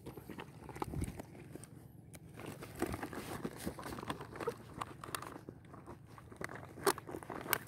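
Irregular small clicks and rustling from hands handling a freshly caught needlefish and the fishing line.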